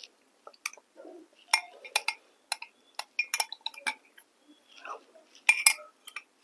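A metal spoon clinks against a glass mug as curd is scooped out and eaten: a series of sharp clinks, the loudest near the end, with soft mouth sounds between.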